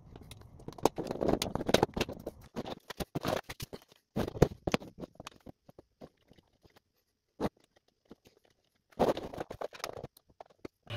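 Rapid, irregular clicks, taps and light rustling of hands handling small electronic modules and wires on a workbench. A gap of dead silence near the middle is broken by a single click, and the taps resume about nine seconds in.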